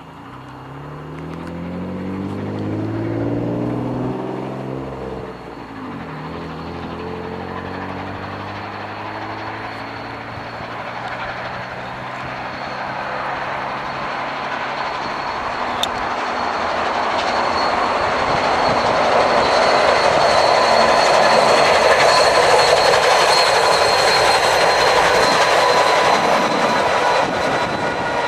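A train rolling past, getting steadily louder through the second half, with wheels clattering on the rails and a few faint steady squealing tones. Near the start, an engine-like hum passes by with its pitch falling.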